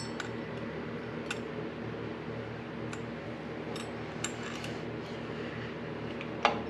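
Light metallic clicks and clinks of small bolts being handled and started by hand into a water pump pulley, over a steady background hum; the sharpest click comes near the end.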